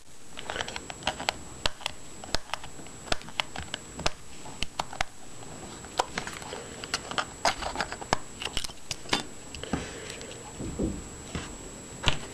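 Irregular clicks and taps of hands handling a Sony Ericsson W995 mobile phone and taking off its back cover to open the battery compartment.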